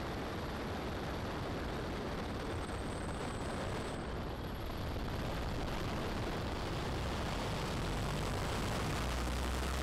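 Tiger Moth biplane's de Havilland Gipsy Major four-cylinder engine running, mixed with a steady rush of wind, heard from the open cockpit during an aerobatic manoeuvre. It grows louder from about halfway, with a deeper rumble near the end.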